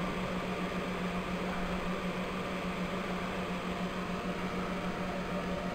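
Cooling fans of grid-tie solar inverters running steadily under load, an even whir with a constant low hum under it.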